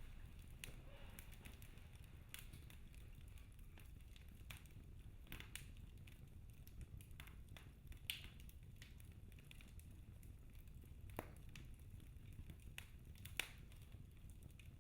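Wood fire crackling in a fireplace: faint, scattered pops and snaps over a low rumble, with a few louder pops in the second half.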